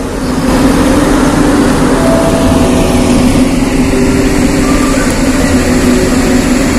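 A car engine running steadily, a constant drone.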